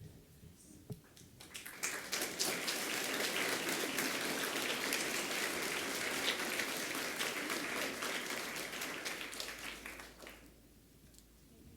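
A large audience of school students applauding together, starting about two seconds in and dying away near the end.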